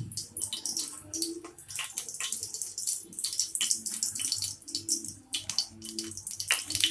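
Cumin seeds sizzling in hot cooking oil in a kadhai, a steady high hiss with many small irregular crackles and pops.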